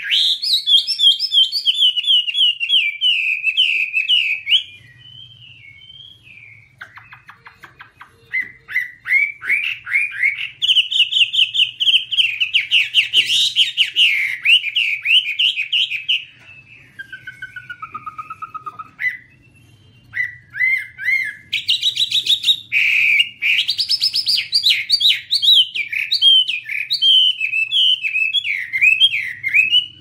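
Chinese hwamei (Garrulax canorus) singing: long, loud runs of rapid, varied whistled notes, with quieter spells about five seconds in and again a little past the middle.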